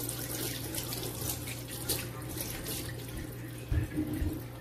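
Running water hissing steadily over a low hum, fading after about three seconds, with a few soft knocks near the end.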